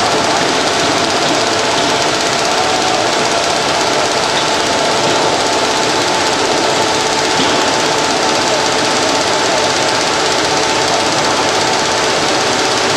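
GM-550 straight-line folder-gluer running at speed: a steady, loud mechanical clatter of its belts and rollers, with a faint hum running through it.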